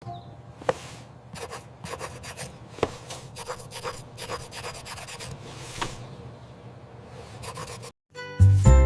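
Rubbing and scratching sound effects with scattered small clicks and taps. Music with a steady beat starts near the end.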